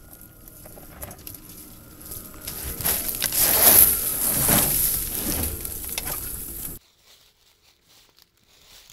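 Tyres of a Ford F-150 Lightning electric pickup prototype crunching over dry leaves and twigs as it rolls past close by, building to a loud crackling rumble about three seconds in and cutting off suddenly near seven seconds. Faint leaf rustles follow.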